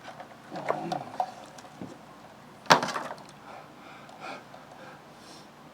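Cables and plugs being handled and pulled loose, with scattered light clicks and one sharp knock about two and a half seconds in.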